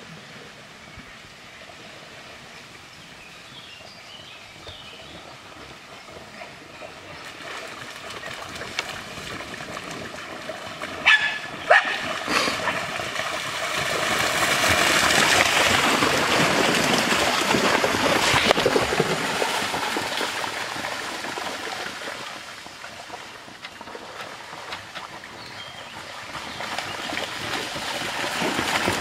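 Continental bulldogs splashing through a shallow creek, the water noise swelling in the middle and rising again near the end as they run down the streambed, over a quiet trickle of flowing water. Two short, sharp dog barks about eleven seconds in.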